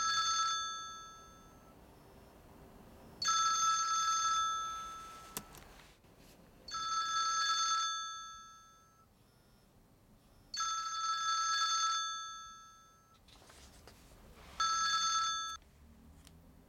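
Mobile phone ringing with an incoming call: five chiming rings about every three to four seconds, each starting sharply and fading out over a second or so.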